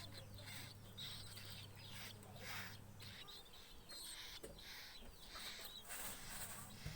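A fledgling bird chirping repeatedly in short high calls, begging to be fed. A low steady hum runs under the first three seconds, then stops.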